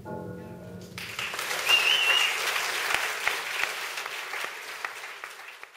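The last chord of a tango recording fades out, and about a second in an audience breaks into applause. Someone whistles a short wavering note early in the clapping, and the applause thins out toward the end.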